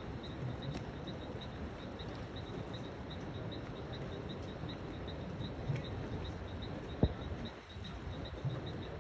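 An insect chirping steadily at a high pitch, about three chirps a second, over a low, even background noise, with one sharp knock about seven seconds in.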